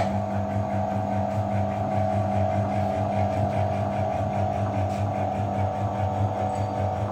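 Notch milling machine's electric motor and cutter starting up abruptly, then running with a steady hum, spinning free before the sample is fed into the cutter.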